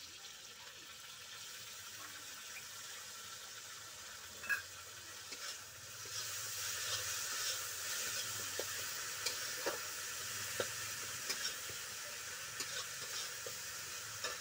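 Chopped onions sizzling in mustard oil in a karai, being fried until reddish-brown. A metal spatula now and then scrapes and taps against the pan. The sizzle grows louder about six seconds in.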